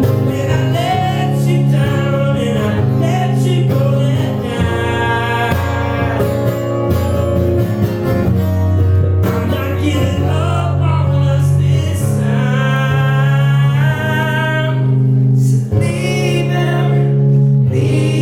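Live performance of a pop song: a singer with guitar accompaniment over sustained low notes, recorded from the audience.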